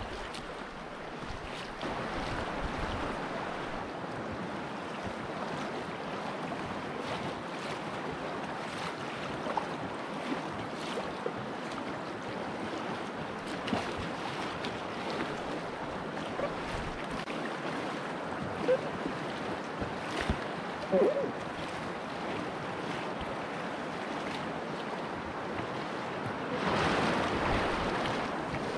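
Fast river current rushing steadily around a packraft, with scattered small splashes and drips from the paddle. About 27 seconds in, the water splashes louder against the raft's bow for a moment.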